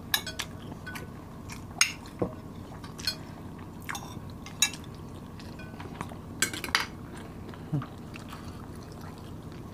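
Metal spoons and forks clinking and scraping against a glass serving dish and plates as rice is scooped, about a dozen short sharp clicks at irregular intervals, with faint chewing between them.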